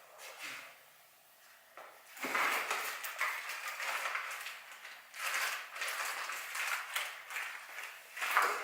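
Cardboard shipping box and its packing being opened and handled: irregular rustling and scraping with a few sharp clicks, starting about two seconds in.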